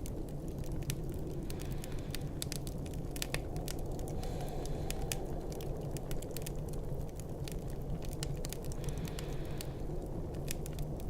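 Fireplace crackling, with many small irregular pops and snaps, over a steady low rumble of snowstorm wind.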